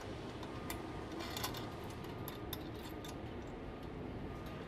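Light, irregular metallic clicks and clinks of hand tools and bolt hardware as a conveyor belt cleaner's tensioner is fastened to its steel drop bracket, with a small cluster about a second and a half in, over a low steady hum.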